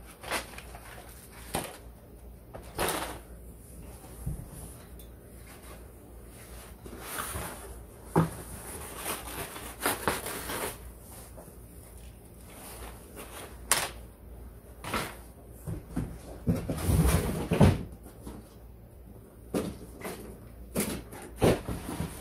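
Irregular plastic-and-metal clicks, knocks and clatter from the folded Graco Modes Nest stroller frame being handled, with rustling of its fabric parts. The loudest clatter comes about three quarters of the way through.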